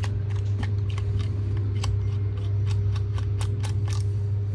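Quick irregular little clicks of a screwdriver and small screws being worked out of a Sunmi V2 Pro handheld terminal's case, densest near the end, over a steady low hum.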